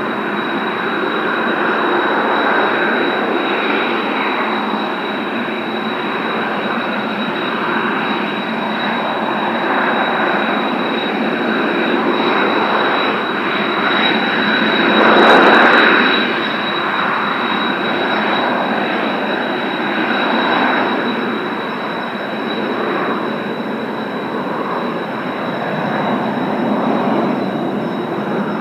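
Kawasaki T-4 jet trainers' turbofan engines running, a dense jet rush with a steady high-pitched whine. The sound swells briefly louder about halfway through.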